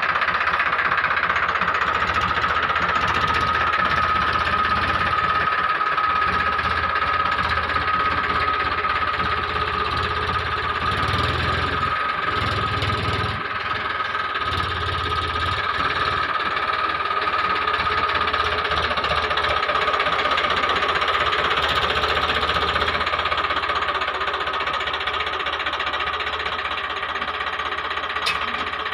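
Engine of a mini tractor loader running steadily, with a steady high tone over a low, pulsing engine note.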